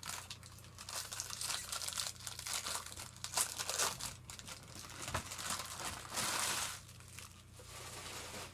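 Baseball card pack wrappers being torn open and crinkled by hand, an irregular crackling and rustling that thickens into a denser crinkle around six seconds in.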